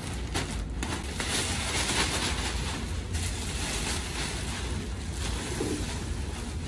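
Large clear plastic drape rustling and crinkling as it is shaken open and pulled down over an ultrasound machine, loudest about one to two seconds in, over a steady low hum.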